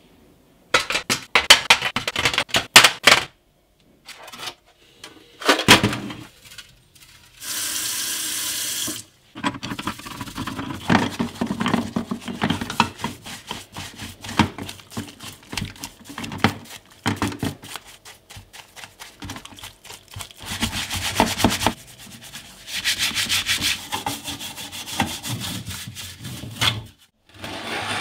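Metal compressor parts clattering into an aluminium tray, then a steady hiss of about two seconds. After that comes a long stretch of scrubbing and rubbing on a greasy cast-metal compressor part in soapy water, with small knocks against the metal tray.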